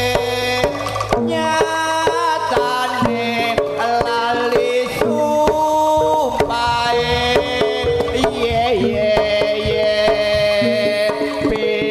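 Live Javanese jaranan accompaniment, played through a PA sound system: kendang hand-drum strokes under a melody of long held notes that step up and down in pitch.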